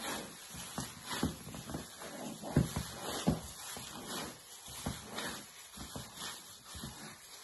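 Hands wrapped in plastic bags kneading raw sausage meat in a plastic bowl: irregular wet squishing with crinkling of the plastic.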